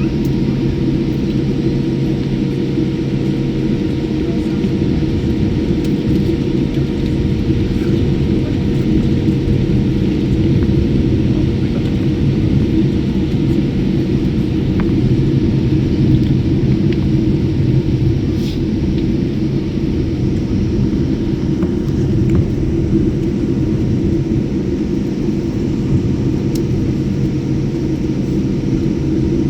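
Airliner engines running, a steady low drone with a few held hum tones on top that does not change.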